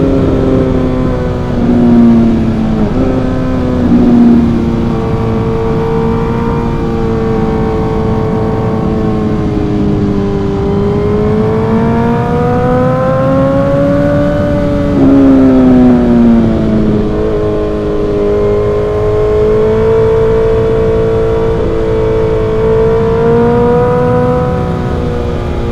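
Suzuki GSX-R1000's inline-four engine through an M4 exhaust, running under way, its note rising and falling with the throttle and dropping sharply a few times as it changes gear.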